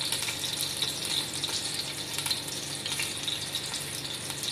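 Freshly added sliced onions frying in hot oil in an aluminium pot: a steady sizzling hiss with fine crackling throughout.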